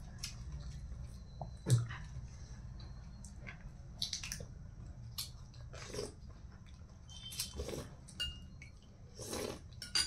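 Close-up eating sounds: chewing, with irregular short clicks and crunches, over a low steady hum.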